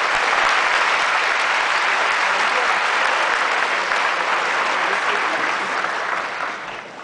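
A large audience applauding to welcome a speaker who has just been introduced; the clapping holds steady, then fades near the end.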